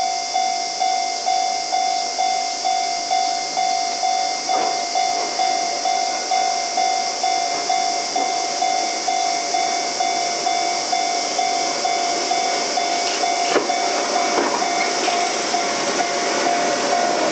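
Railway level-crossing warning bell ringing over and over at about two strikes a second while a Keihan 700 series train passes. The train's wheels knock over the rail joints near the end.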